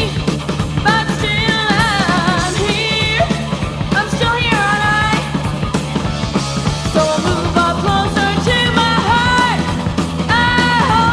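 Early-1980s heavy metal song playing: distorted electric guitars, bass and drums under a high lead vocal holding long notes with vibrato.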